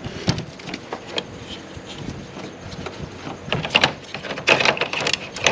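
Hard plastic clicking and knocking as the parts of a Toyota Tundra grille are handled and worked loose by hand. The clicks are scattered at first and come thick and fast over the last couple of seconds.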